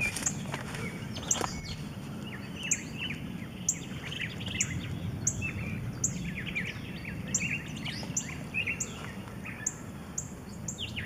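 Backyard birds singing: one bird repeats a short high note about once a second, while others chirp more quietly at a lower pitch, over a steady low outdoor background.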